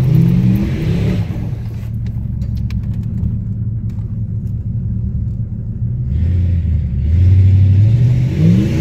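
Car engine revving hard as a sedan struggles to climb a loose dirt hill, over a steady engine rumble, heard from inside a following vehicle's cabin. The revs climb at the start and again, louder, about six seconds in.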